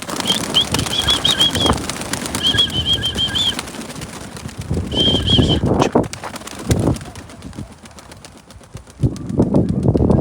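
Wind buffeting the microphone in rough gusts, with three short runs of rapid high bird chirps in the first half.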